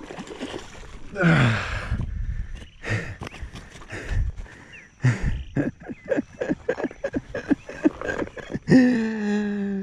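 A hooked traíra pulled out of a pond with a splash of water about a second in, then a run of quick knocks and rustles as it flaps on the grass bank. The angler lets out a falling grunt with the pull, and a long held vocal sound near the end.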